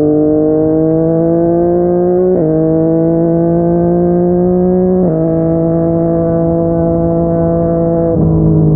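Yamaha MT-09 inline-three engine through a Yoshimura R55 slip-on exhaust, pulling under light throttle. The pitch climbs slowly, then drops sharply as it shifts up, about two and a half seconds in, again about five seconds in, and once more near the end.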